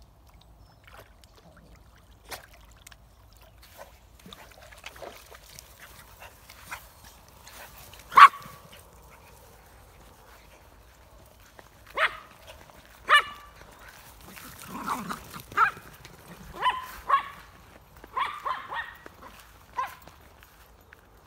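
Small dogs barking in short, sharp yaps while playing: one loud bark about eight seconds in, then a quick run of about ten more through the second half.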